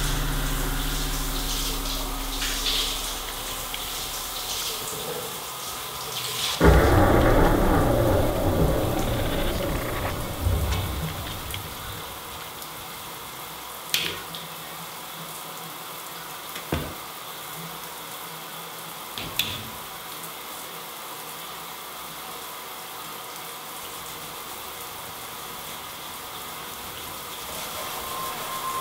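Shower spray hissing, with a low rumbling drone that fades out over the first few seconds. About a quarter of the way in comes a sudden loud crash with a long rumbling decay, then three sharp clicks, after which only the faint steady hiss of the water is left.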